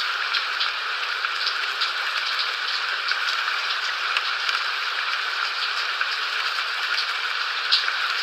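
Steady rain falling on a surface, a continuous hiss dotted with frequent sharp drop ticks.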